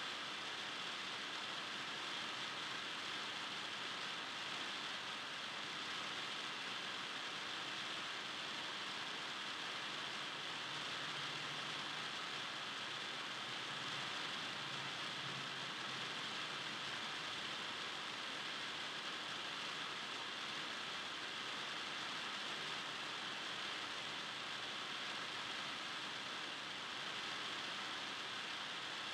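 Steady, even hiss of gym background noise, with no distinct ball bounces, shoe squeaks or voices standing out.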